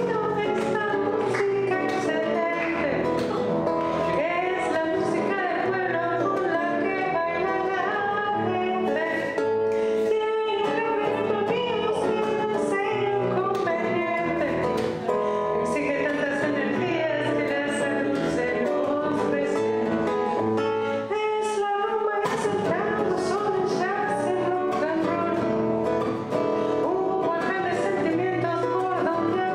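A woman singing a song to a strummed acoustic guitar accompaniment.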